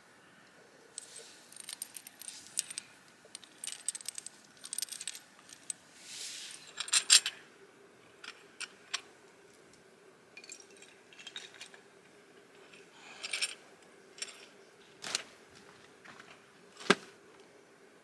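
Handling noises: scattered clicks and clinks of small stones and hard pieces, with a short rustle partway through and one sharp knock near the end.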